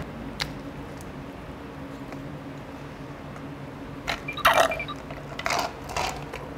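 Close-up mukbang eating sounds: quiet chewing of toast with a few small clicks. About four seconds in, loud slurps of an iced drink through a metal straw, then a second burst as the straw is stirred in the glass.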